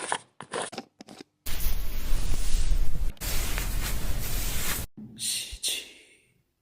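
Close hair and scalp sounds: fingers scratching and rubbing through hair during scalp care, in several short snippets that start and stop abruptly, the longest stretch in the middle.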